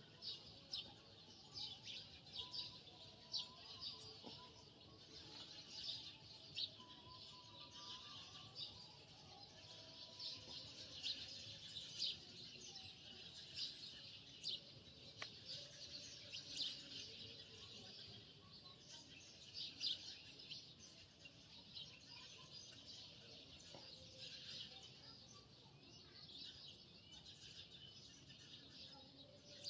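Faint, continuous chirping of many birds: short high chirps following one another densely.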